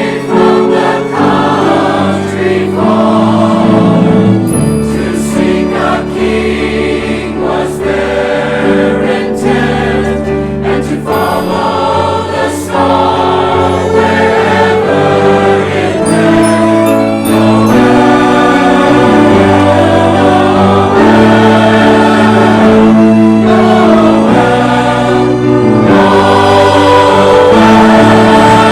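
Choir singing with orchestral accompaniment, sustained chords over a moving bass line, growing louder in the second half.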